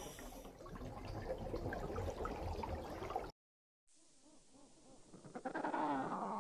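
Faint water trickling and bubbling in a reef aquarium, cut off abruptly about three seconds in, followed by a moment of dead silence. From about five seconds in, African penguin calls begin, faint at first and growing louder, their pitch rising and falling.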